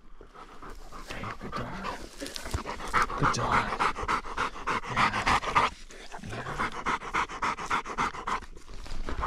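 A wirehaired pointing dog (drahthaar) panting hard and fast, short of breath after a retrieve, with a short pause about two-thirds of the way through.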